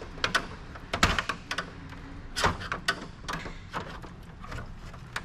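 Irregular clicks and knocks of a PC cooling fan being worked loose and unclipped from a Dell clamshell computer's chassis, with two louder knocks about one second and two and a half seconds in.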